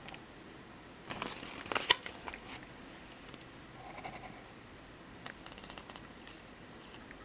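Quiet handling noise of a paper contents card and cardboard box: rustling and a few sharp clicks, the sharpest about two seconds in, then a short run of light clicks a little past five seconds.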